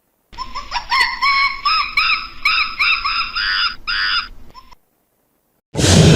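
An animal calling in a quick series of short pitched calls, each rising and falling, about three a second, which stop after about four and a half seconds. A loud, noisy rushing sound starts near the end.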